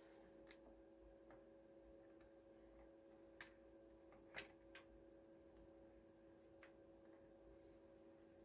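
Near silence: a faint steady hum with a few scattered faint clicks, two of them close together about four and a half seconds in.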